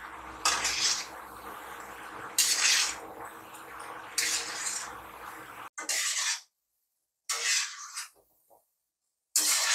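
Urad dal bondas sizzling as they deep-fry in hot oil in a metal kadai, with three louder swishes and scrapes as a slotted ladle turns them. About halfway the steady sizzle cuts off, leaving only short bursts of the same sound with silence between them.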